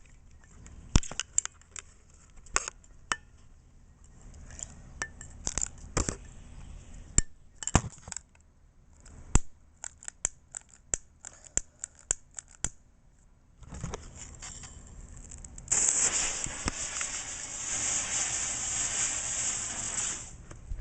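A child-safety lighter struck over and over: many sharp, irregular clicks with pauses between them, as it fails to light. Near the end a loud, steady hiss runs for about five seconds and then stops: pink Chinese visco fuse burning.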